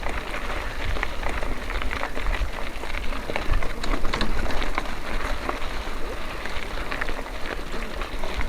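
Mountain bike rolling over a rough dirt trail: a dense crackle and rattle of tyres and bike parts, over a low wind rumble on the microphone.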